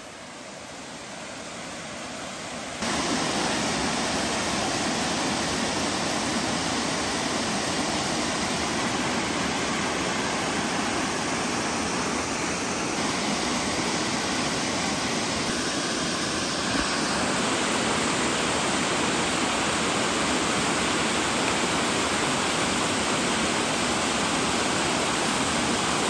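Water rushing down a small cascading waterfall over stepped rock ledges: a steady wash of white-water noise. It starts quieter and jumps louder about three seconds in.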